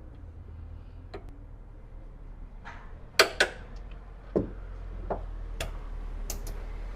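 Scattered sharp clicks and knocks of hand tools and metal suspension parts being handled, irregular, with a louder pair a little past three seconds in, over a steady low hum.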